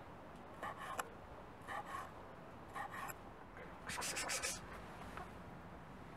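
Large kitchen knife slicing soft fish milt on a wooden cutting board: a short rasping stroke ending in a tap on the board, about once a second, three times. A louder burst of rapid ticks follows about four seconds in.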